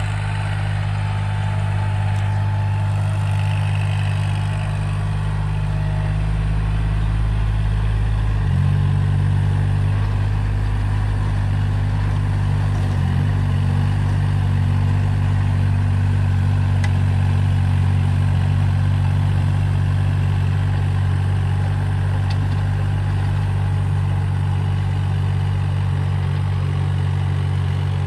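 Kubota compact tractor's diesel engine running steadily under load while it drives a rear rotary tiller through rice-paddy stubble. The engine note steps up slightly about a third of the way in.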